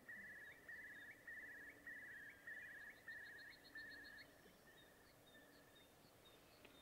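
A wading bird calling, which the listeners take for some kind of snipe: a steady series of short trilled notes about twice a second, fading out about two-thirds of the way through.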